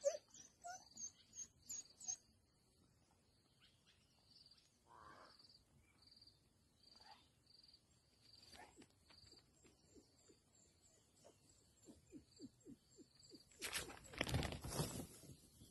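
African wild dogs twittering: a quick run of short chirping calls, then mostly quiet with a faint high chirp repeating evenly, and another quick run of twitters about twelve seconds in. About fourteen seconds in, a louder burst of rustling noise lasts a second or two as a dog dashes past close by.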